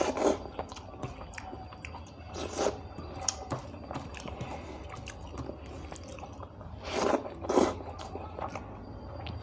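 Close-miked chewing and mouth sounds of a person eating rice with saag curry and fried chicken liver: many small wet clicks and smacks, with louder mouthfuls near the start, about two and a half seconds in, and twice around seven seconds in.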